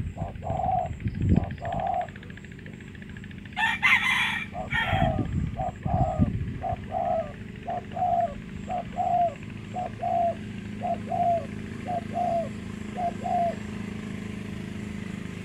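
Spotted doves calling, a run of short cooing notes repeated about twice a second that stops near the end. A rooster crows once, briefly and loudly, about four seconds in.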